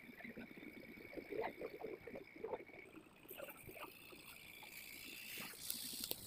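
Faint scratching of a pencil shading on paper. About three seconds in it gives way to a higher rustling hiss of handling as the card and phone are moved, with a few light clicks near the end.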